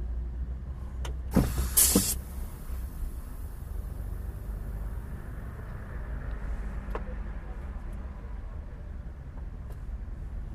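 Scania R450 truck's diesel engine running as a steady low rumble heard inside the cab, with a short loud hiss and a couple of clicks about a second and a half in.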